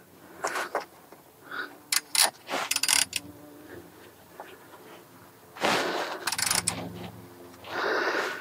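Click-type torque wrench, set to 60, ratcheting and clicking in short bursts of sharp clicks as the new front brake caliper's bolts are tightened to torque.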